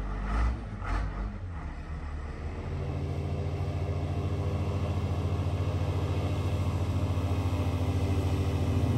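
Airboat's engine and caged propeller running as a steady, pulsing drone that slowly grows louder as the boat crosses the river, after a couple of knocks in the first second or so.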